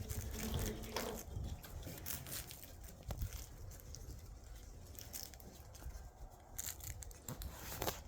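Shiba Inu puppies at play: scattered light taps, scratches and scuffles of small paws and bodies, with a few sharper clicks.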